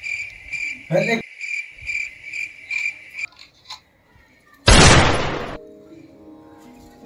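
Added sound effects. A high chirping sound pulses about three times a second, and a quick rising whoosh comes about a second in. Then a sudden loud, noisy blast lasts about a second, and faint music follows.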